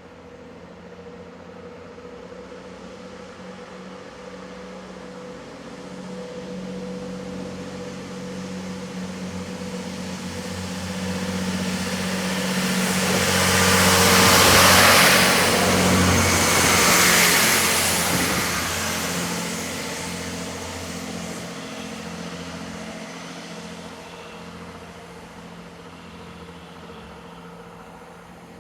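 Diesel train approaching, passing close and fading away. Its engine note and the rush of wheels on rail build gradually and are loudest just past halfway, with two peaks about two seconds apart.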